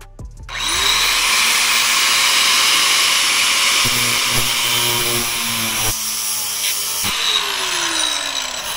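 Handheld power tool, an angle grinder or cut-off tool, spinning up and cutting through metal steadily, then winding down about seven seconds in. It is cutting the corroded seat's backing plate to reach the rear rail bolts.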